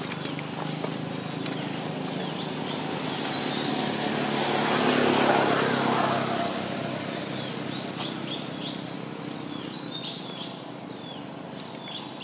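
Outdoor ambience of small birds chirping in short, quick repeated calls, over a rushing noise that swells and fades about halfway through.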